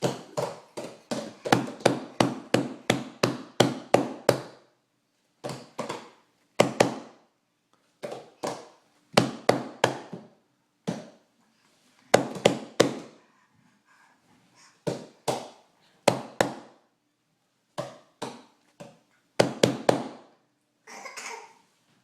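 Bursts of rapid sharp knocks or taps, several a second, in groups separated by short pauses; the fastest run is at the start.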